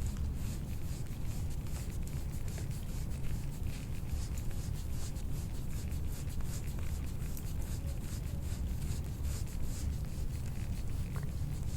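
Repeated rubbing strokes of massage work over skin, over a steady low hum.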